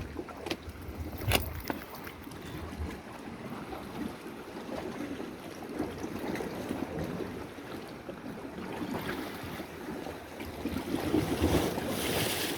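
Sea water washing against shoreline rocks, a steady noisy wash with wind on the microphone, louder near the end. A single sharp knock comes about a second in.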